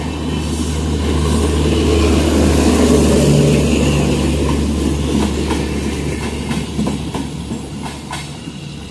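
Passenger train coaches rolling past, the wheel and rail noise swelling to its loudest about three seconds in and then fading as the train draws away. A run of light clicks, wheels over rail joints, comes near the end over a steady low hum.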